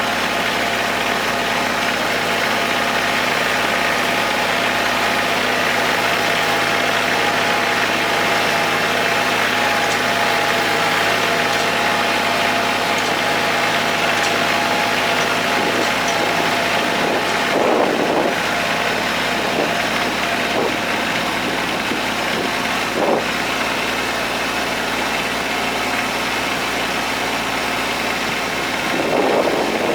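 Kubota tractor's diesel engine running steadily as it pulls a hay tedder spreading cut hay, with a few short louder swells, about two-thirds of the way through and near the end.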